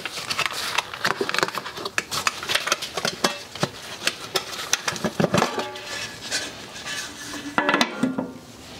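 Spring clips on a BMW 1602's air cleaner housing being unsnapped and the lid lifted off: an irregular run of metallic clicks, clanks and light scraping, with a couple of brief ringing scrapes about five seconds in and near the end.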